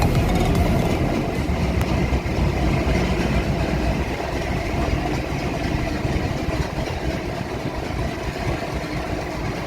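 Goods train with wagons loaded with crushed stone running past, a steady rumble that slowly fades.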